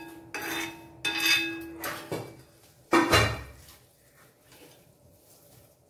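Steel spoon scraping and clinking against an iron kadai and a wire strainer as fried henna leaves are scooped out of the oil: four or five ringing metallic strokes in the first three seconds, the loudest with a dull knock about three seconds in.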